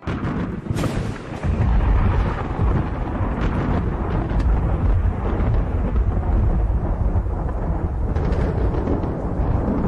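Storm noise: a sharp crack just under a second in, then a steady, heavy low rumble of wind and rain, typical of a hurricane or thunderstorm heard on a microphone.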